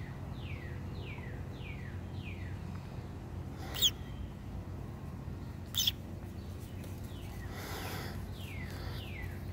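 A bird calling in a run of short notes that slide downward, about three a second, near the start and again near the end. Two brief, sharp, louder sounds come in between, over a steady low hum.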